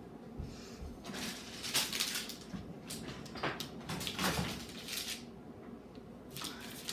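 Irregular rustling and light knocks of grocery bags and items being handled, coming in a string of short bursts for several seconds.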